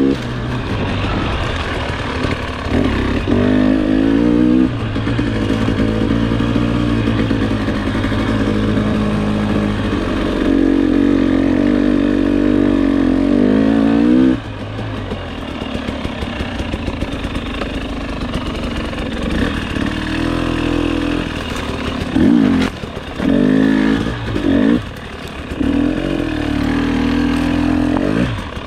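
Two-stroke single-cylinder engine of a 2020 KTM 300 XC-W TPI dirt bike being ridden, revs rising and falling with the throttle. The revs drop off sharply about halfway through, and there are a few quick rev blips near the end.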